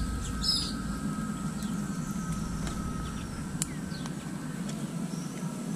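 Outdoor ambience: a steady low rumble with a few faint bird chirps and a single click.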